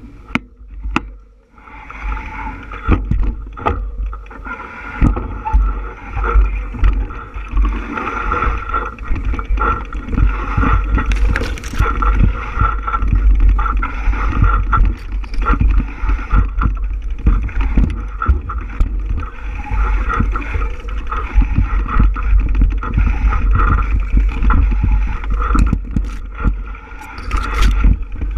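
Bicycle ride noise: wind buffeting the microphone with a heavy, gusting rumble over the steady whir of tyres and drivetrain on the trail, building up about two seconds in as the bike gets moving.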